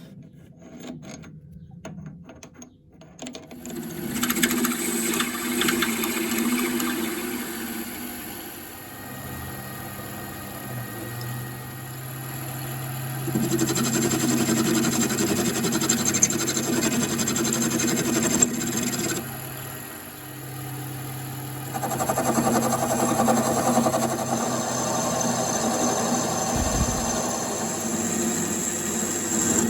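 Small bench-top lathe running with a steady motor hum, with three longer spells of louder machining noise as the tool works the metal.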